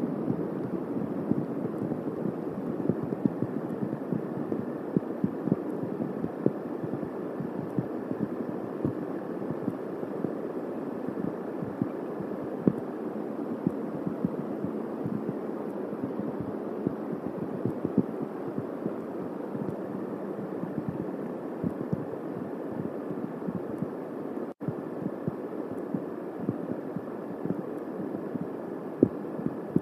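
Steady rain falling on the eagle nest and tree around the nest-cam microphone, with many irregular drops tapping close to it. The sound cuts out for an instant about three-quarters of the way through.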